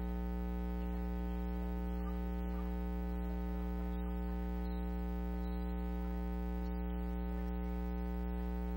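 Steady electrical hum from the sound system, a constant buzz with many overtones, with a faint voice at the microphone beneath it.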